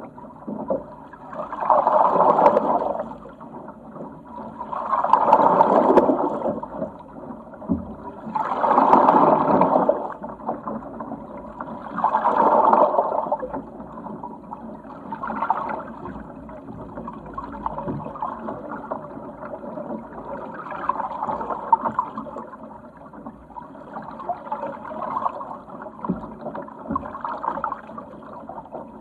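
Water rushing and splashing along the hull of a Sigma 8 metre yacht under sail, swelling in four surges a few seconds apart, then settling to a lower, steadier wash in the second half.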